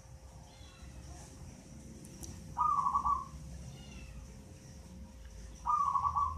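Eight-month-old zebra dove (perkutut) cooing: two short phrases of quick pulsed coos, about three seconds apart, the second running into the end.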